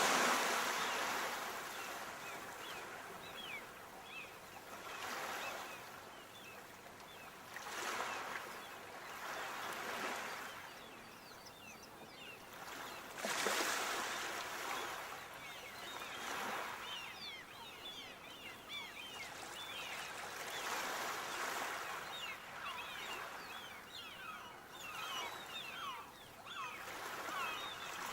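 Sea waves breaking and washing up the shore, swelling and fading every few seconds, with the loudest surges near the start and about halfway through. Many faint, short, high chirps sound over the wash through most of it.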